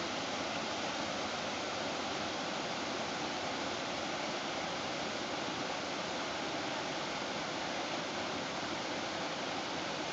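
Creek water spilling over a low rocky cascade into a pool: a steady, even rush with no breaks.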